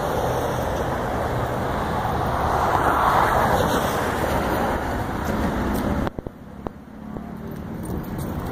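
Road traffic going by on a multi-lane highway: a steady rushing of tyres and engines that swells as a vehicle passes close, loudest about three seconds in, then drops away abruptly about six seconds in, leaving a fainter hum.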